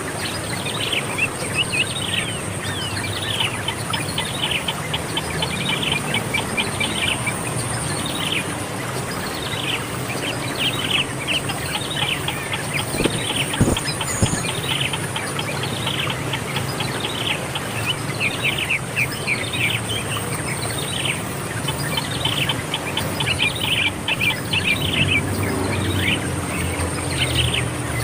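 A small bird chirping over and over, quick falling chirps several times a second, over a steady high-pitched hiss. A soft knock comes about halfway through.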